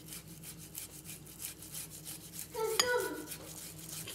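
Boiled potato rubbed across a flat handheld metal grater, quick repeated rasping strokes. About three seconds in comes a louder clink with a short ring, the grater knocking the glass bowl.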